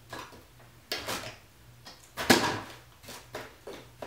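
Spoon scraping and packing a damp, sandy sugar mixture into a wooden candy board frame: a series of short scrapes, the loudest a little over two seconds in.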